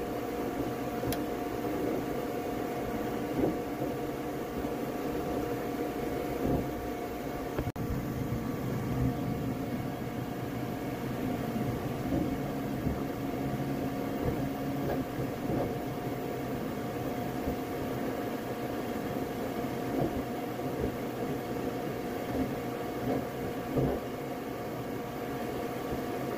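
Flashforge Adventurer 5M Pro 3D printer running a print: a steady hum of cooling fans and the whine of stepper motors as the print head moves, with short louder moves now and then.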